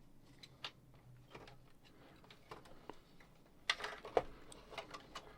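Faint, scattered small clicks and light plastic knocks from a boombox's cassette deck mechanism being handled while its leads are worked free, with two louder clicks about two thirds of the way through.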